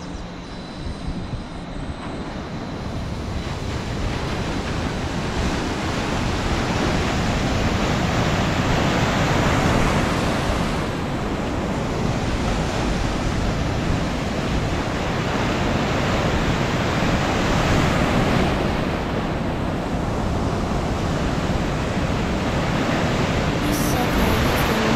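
Waves breaking and washing in a surf wave pool. The surf noise builds over the first few seconds and swells again twice, with wind rumbling on the microphone.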